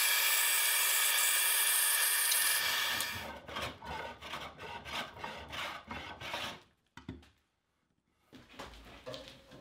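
Bandsaw blade cutting through a wooden tool handle, a steady hissing run that stops about two and a half seconds in; then a hand plane shaving the handle in a run of short rasping strokes.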